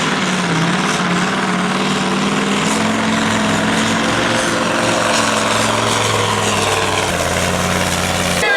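Super sport pulling truck's engine running hard at high, fairly steady revs under load while pulling the sled. It cuts off abruptly near the end.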